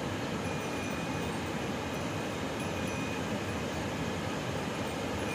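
Large waterfall in heavy flow, water pouring over wide stepped rock ledges in a steady, even rush.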